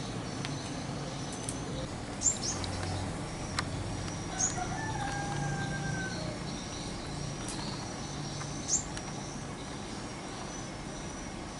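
A rooster crows once, about five seconds in, over a steady high insect drone. Several short, sharp bird chirps are the loudest sounds.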